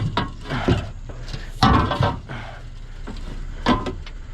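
Scrap being unloaded by hand: a few separate knocks and clatters, the loudest about a second and a half in with a short ring.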